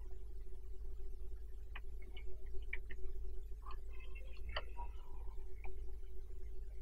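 A few scattered computer mouse clicks over a steady electrical hum.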